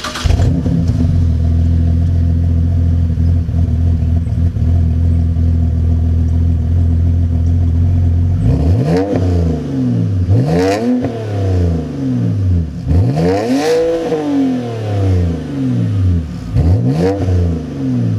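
BMW E90 3 Series inline-six, muffler-deleted, firing up at the start and settling into a steady idle for about eight seconds. It is then revved four times, each rev rising and falling in pitch, with the loudest rev near the 14-second mark. The raw exhaust note comes straight from the dual tailpipes.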